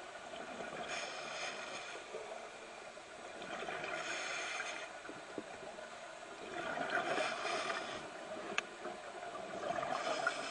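Scuba diver breathing through a regulator underwater, heard through the camera housing. A bubbling hiss swells four times, about every three seconds, once for each breath.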